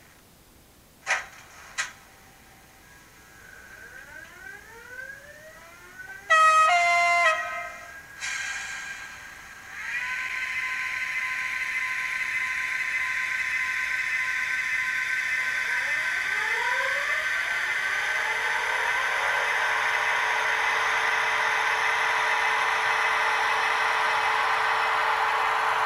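Märklin model locomotive's built-in sound effects playing through its small speaker: two clicks, rising whines, then a loud horn blast about six seconds in. From about ten seconds in, a steady hissing drone with a few held tones takes over and slowly grows louder.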